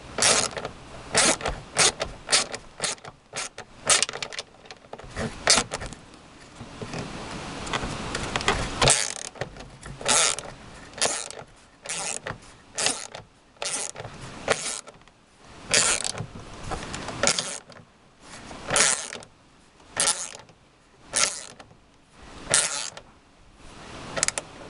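Socket ratchet clicking in short bursts as it is swung back and forth, tightening the mounting nut of a car's door mirror. The bursts come quickly and unevenly at first, then settle to roughly one a second.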